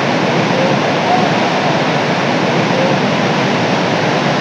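Whitewater rapids rushing: a steady, even noise of churning river water.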